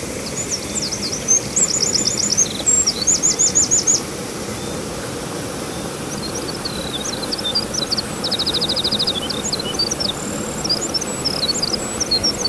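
Songbirds singing: several high phrases of quick repeated notes, with fast trills around the first few seconds and again in the second half, over a steady rushing background noise.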